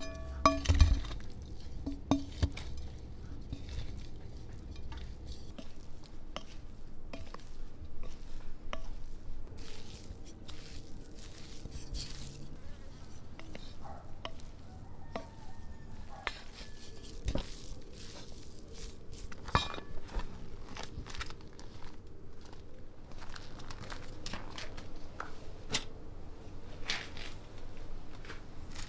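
Wooden spoon stirring and mashing a potato and herb filling in a ceramic bowl, with irregular knocks and scrapes against the bowl, the loudest about a second in. A fly buzzes on and off.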